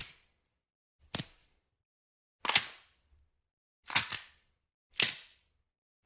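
A series of sharp cracks, about one a second, each dying away quickly; the one about four seconds in comes as a quick double crack.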